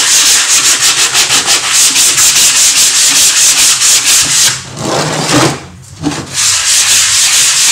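Sandpaper wrapped on a small wooden block rubbed in quick back-and-forth strokes over a gesso-primed wooden board, several strokes a second, with a break of about a second and a half near five seconds in. The ground has been softened with water into a slurry, so this is wet sanding to level and smooth the primer.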